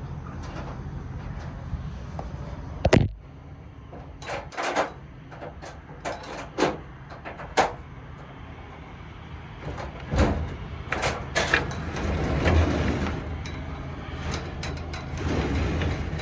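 Metal compartment doors and latches on a truck's service bed being opened, shut and handled: a string of sharp clanks and knocks, the loudest about three seconds in, with a rattling, scraping stretch near the end, over a steady low hum.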